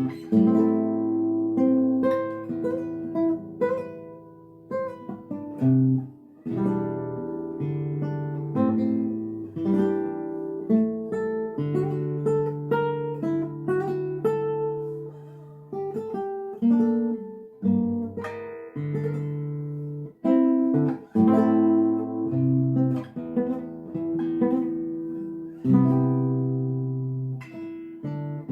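Solo guitar playing: plucked notes and chords over held bass notes, with sudden accents and a few brief breaks.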